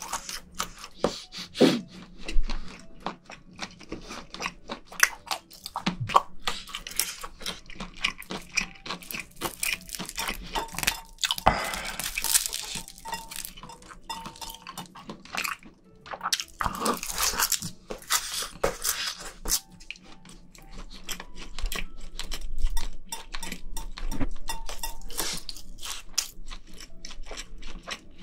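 Close-miked eating sounds: a person chewing and crunching seafood stew and multigrain rice wrapped in roasted seaweed, with many short crackly clicks. There are two longer rustly stretches, about twelve and seventeen seconds in.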